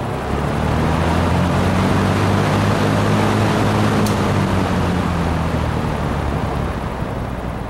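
Metal box fan with a Fasco motor running: a low motor hum under a steady rush of air from the blades. It swells over the first couple of seconds, then eases off slowly.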